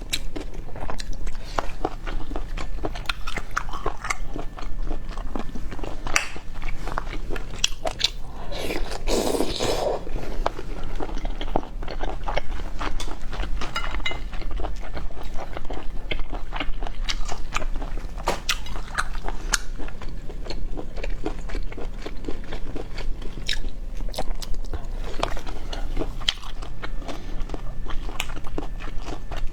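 Close-up eating of boiled snails: steady biting and chewing with many small clicks, and a longer noisy sound about nine seconds in.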